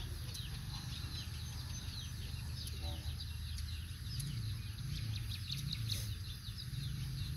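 Small birds chirping busily in the background, many short, quick high chirps overlapping, over a steady low rumble.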